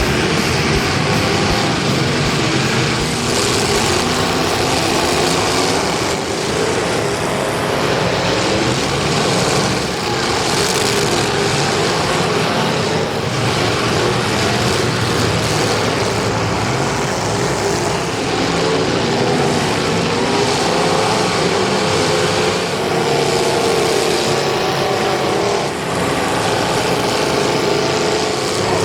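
Several demolition derby cars' engines running hard and revving as they race around the track, in a loud, continuous din with wavering engine pitch.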